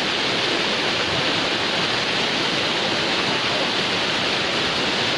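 Waterfall pouring steadily, a constant rushing of falling water.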